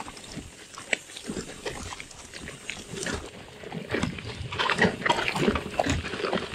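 Bicycle clattering and rattling down a rough, rocky single-track descent: irregular knocks and clicks from tyres and frame over the ground, thickest in the last couple of seconds.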